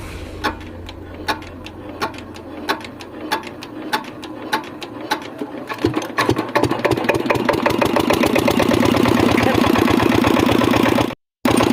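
Hand-cranked irrigation engine starting. Slow, evenly spaced thumps quicken over the first six seconds, then it catches and runs steadily at a fast beat.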